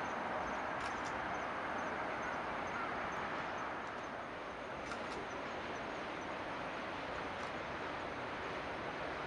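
Steady outdoor background noise with a few faint, short, high bird chirps.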